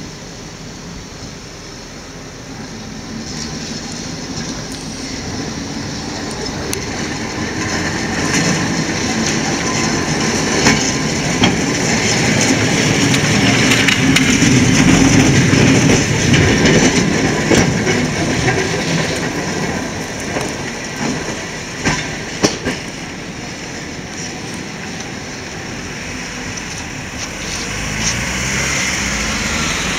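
Vintage two-axle trolley-pole tram passing: its wheels rumble on the rails, building up to a peak about halfway through and then fading as it moves away. A few sharp clicks from the wheels and rails sound over the rumble. Near the end a car approaches.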